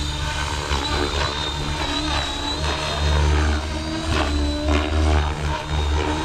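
Blade Fusion 550 6S electric RC helicopter lifting off and flying, the rotor running with a steady high whine from the electric motor over a strong, uneven low rumble.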